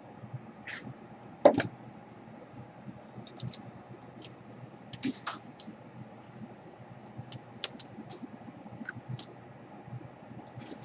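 Small irregular clicks and light scraping from a hand tool working at a laptop DC power jack's wires while heat shrink is picked off the rear solder connections, with one louder knock about a second and a half in.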